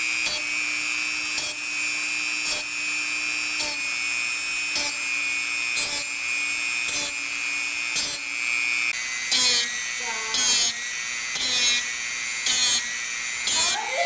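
Dremel rotary tool with a cutoff wheel whining steadily as it is touched against the back of each bandsaw blade tooth in turn, giving a short grinding burst about once a second: a dull blade being sharpened tooth by tooth. The bursts last longer in the second half.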